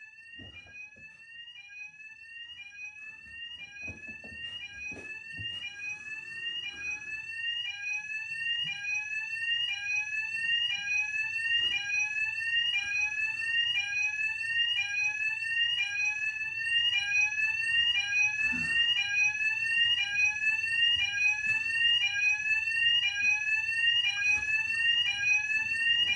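Fire alarm sounder going off continuously: a high tone that sweeps upward in pitch and restarts over and over in a rapid whooping pattern, growing steadily louder.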